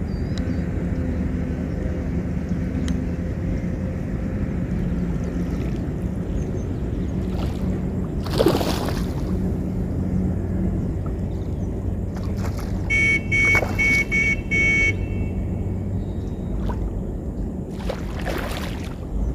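A hooked rohu being played in shallow water: two loud rushing splashes, one about eight seconds in and one near the end, over a steady low hum. About two-thirds through, a horn sounds a quick run of toots.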